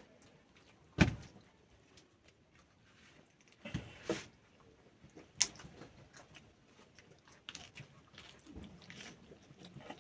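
Scattered knocks and clicks of objects being handled, the loudest a single knock about a second in, with a few more near the middle.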